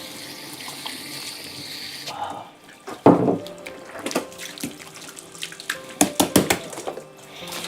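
Water running from a kitchen tap over a pig lung being rinsed, shut off about two seconds in. A string of sharp knocks and clatters follows.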